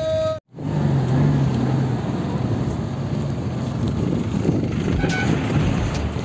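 A moving bus heard from inside: steady engine rumble and road noise. A brief steady tone at the very start breaks off abruptly in a short gap before the rumble sets in.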